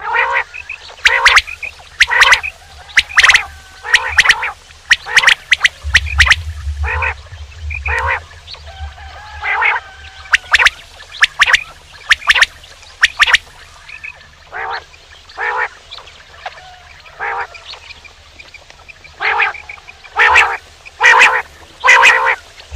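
Male quail calling over and over: short, sharp, loud calls that often come in quick groups of two or three. The calls grow fainter in the middle and loud again near the end, over a faint low hum.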